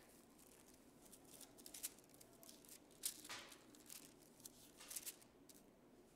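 Faint rustling and a few soft flicks of thin Bible pages being turned by hand, over quiet room tone.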